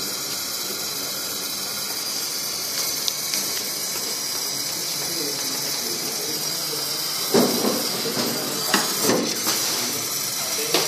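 Gas brazing torch flame hissing steadily as it heats a copper tube joint on a refrigerator's compressor. A few short bumps and clatters come between about seven and nine and a half seconds in.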